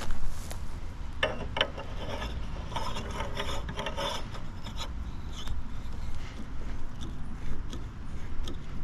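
Metal parts scraping and rubbing with scattered clicks, from threading the mower's new muffler and its pipe fittings into place, over a low steady rumble. The scraping is densest in the first half.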